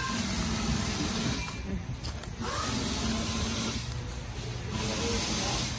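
Compressed air hissing into stretched 37-inch tires on 26x16 rims to seat the beads, in three long bursts with short pauses between, over a steady low hum.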